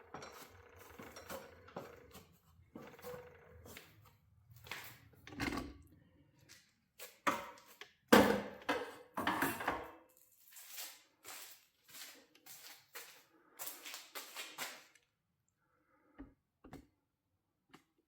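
Irregular metallic clinks and knocks of tools and garage door spring hardware being handled, stopping about fifteen seconds in, with a couple of faint clicks after.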